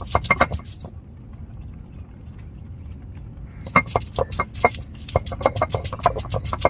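Stone roller knocking and grinding on an ammi, a flat stone grinding slab, as small onions are crushed. A few knocks at the start, a quieter stretch, then a rapid run of knocks from nearly four seconds in.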